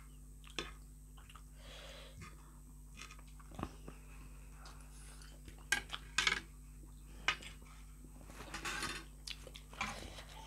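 Soft chewing of spicy instant noodles, with a few sharp clicks of a fork and chopsticks against plates.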